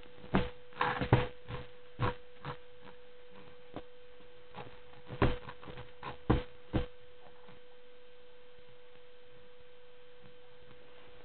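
A baby kicking and squirming on a crib mattress makes about a dozen short soft knocks and rustles over the first seven seconds, over a steady mid-pitched hum. Only the hum is left for the last few seconds.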